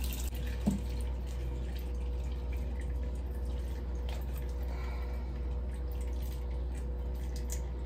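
Water dripping and trickling into a sink from a tap that has just been turned off and from wet hair, over a steady low hum. There is a light knock just under a second in.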